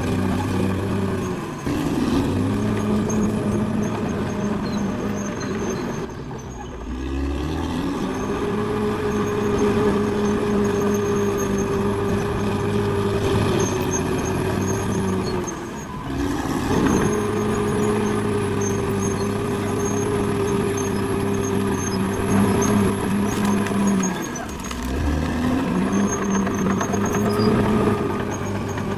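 Caterpillar D6R XL bulldozer's diesel engine working: it revs up, holds steady under load for several seconds, then drops back, about three times over.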